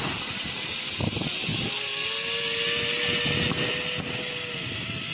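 Zipline trolley running along its steel cable, giving a steady whine, over the rush of wind on a phone's microphone.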